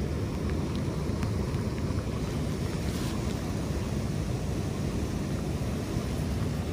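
Steady low rumble of wind buffeting the microphone over rushing water, with a few faint ticks in the first half.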